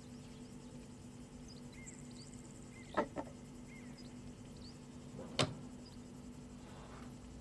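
Two light knocks on a wooden workbench, one about three seconds in and a louder one about two and a half seconds later, as a small toy car is set down on it. Under them is a steady low hum with faint short high chirps.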